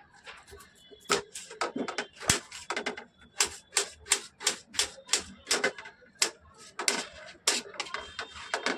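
A kitchen knife slicing a peeled raw potato on a cutting board: sharp clicks of the blade meeting the board, about three a second in an even rhythm.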